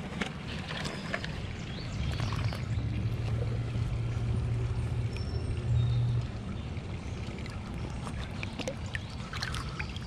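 Shallow river water sloshing and splashing as a gloved hand digs an old glass bottle out of the riverbed and lifts it. Scattered small clicks and knocks run through it, with a low rumble for a few seconds in the middle.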